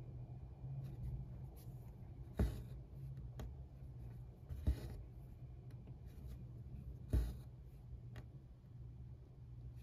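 Cross-stitch needle passing through 25-count Lugana evenweave fabric and the thread drawn through after it: three louder short pulls about two and a half seconds apart, with fainter ticks between. A steady low hum lies underneath.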